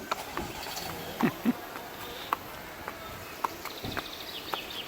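Horse's hooves knocking on the ground at a slow, uneven walk, with a short high bird trill near the end.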